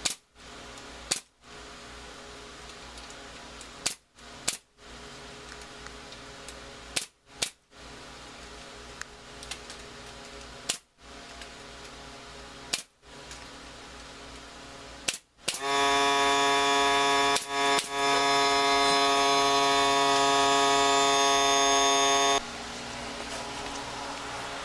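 Pneumatic brad nailer firing about nine times, mostly in close pairs, nailing wood trim in place. About fifteen seconds in, a loud steady motor hum starts and cuts off suddenly some seven seconds later.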